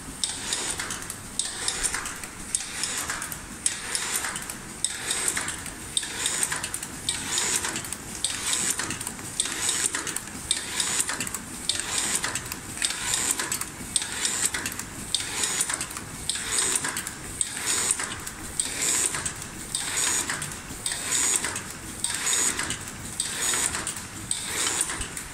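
LDT-YFFT-2000 automatic express envelope sealing and labeling machine running, its mechanisms clattering with a high hiss in a steady cycle that repeats about every three quarters of a second.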